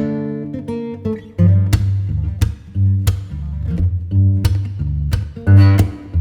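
Background music: acoustic guitar with bass and a steady beat.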